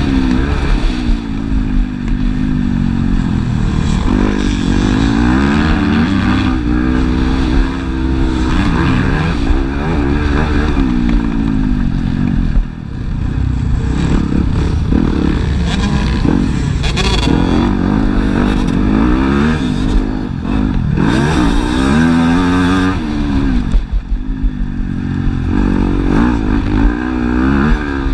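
Motocross dirt bike engine heard close up from the bike itself, revving up and down over and over as the rider opens and closes the throttle through straights and turns, with a brief drop in level about halfway through.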